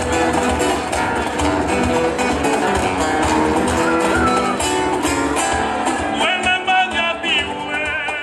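Live band music: acoustic and electric guitars play an instrumental passage over a steady beat, with a wavering high melody line coming in near the end.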